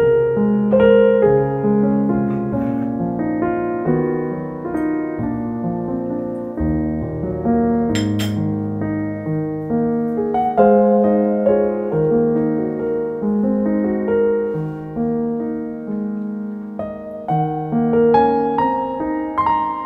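Background music: solo piano playing a slow line of held notes and chords.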